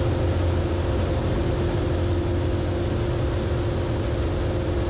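Zenith CH 650 light sport aircraft's piston engine and propeller droning steadily in flight, heard from inside the cockpit.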